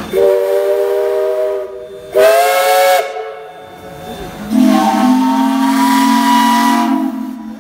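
Steam locomotive chime whistle blowing three blasts: a roughly two-second blast, a short higher-pitched one, then a longer, lower-pitched blast.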